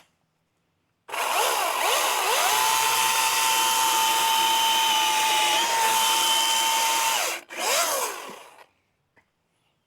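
Milwaukee M18 battery top-handle chainsaw's direct-drive motor winding up to speed and running at a steady high whine for about six seconds, then cutting off. About a second later a short second trigger pull spins it up and back down.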